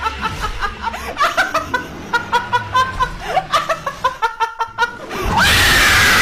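A person laughing in a quick run of short pitched bursts, then a loud scream with falling pitch near the end that cuts off suddenly.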